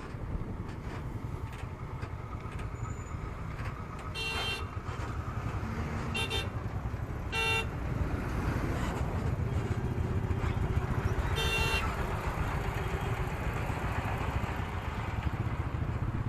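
Steady low rumble of a motorcycle riding in heavy highway traffic, picked up by an action camera's built-in microphone, with four short vehicle horn honks through the middle of the stretch.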